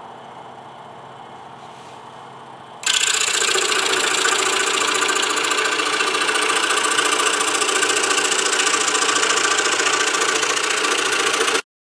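DeWalt scroll saw running with its blade reciprocating. The sound is moderate for about the first three seconds, then jumps suddenly to a much louder, fast, even chatter, and cuts off abruptly near the end.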